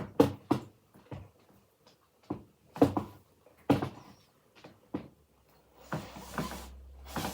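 A series of sharp knocks and clacks, about a dozen over five seconds, from screws and tools being handled against the wooden parts of an armchair being taken apart. From about six seconds in, a low steady hum joins them.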